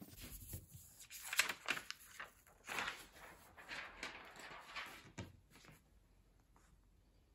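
Sheets of paper rustling and sliding on a cutting mat as they are lifted and handled. It is a string of short scrapes and crinkles that dies away after about five seconds.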